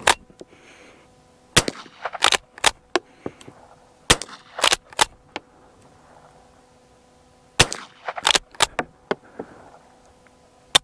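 A .22 rimfire Winchester rifle firing a string of sharp, short cracks, often less than a second apart, with a pause of a couple of seconds near the middle. Fainter clicks fall between some of the shots.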